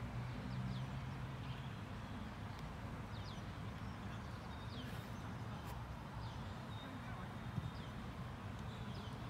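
Open-air ambience at a grass football pitch: short bird chirps repeating every second or so over a steady low rumble. Faint distant voices of players and a few faint knocks are mixed in.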